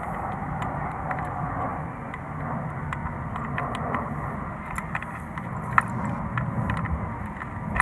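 Steady rumble of vehicle traffic, with a few light clicks and taps of small metal clutch parts being handled, one sharper click near the end.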